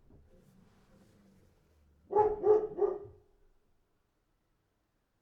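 A dog barking three times in quick succession about two seconds in.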